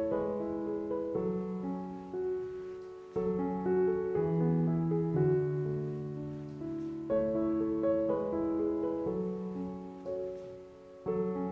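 Background music: a gentle piano tune, its notes ringing out and fading, in phrases that start afresh every four seconds or so.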